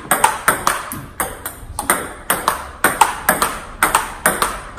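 Table tennis rally of quick backhand blocks: the ball clicks off rubber-faced bats and the table in a fast, even rhythm, about four to five sharp hits a second.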